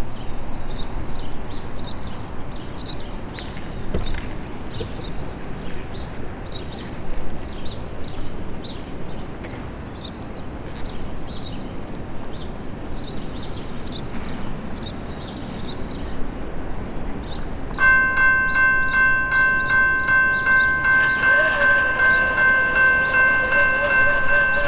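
Open-air background with scattered high bird chirps, then, about two-thirds of the way in, a railroad crossing bell starts ringing, a steady repeating ding as the signals activate. A few seconds later the distant horn of the approaching lead GE D9-44CW locomotive sounds, a wavering tone under the bell.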